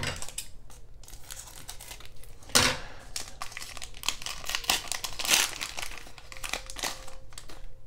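Scissors cutting open a small trading-card pack, then its wrapper crinkling and rustling as it is handled, with a few sharper, louder crackles.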